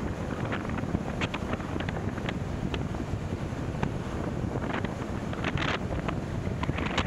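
Wind buffeting the microphone of a camera mounted on a moving car. It makes a steady low rumble with many short, scattered crackles.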